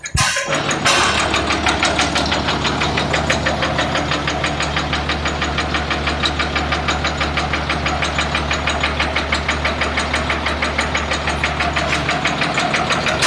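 Freshly overhauled Hino straight-six diesel engine on a generator, catching about half a second in and then running steadily with an even, rhythmic pulse on its test run.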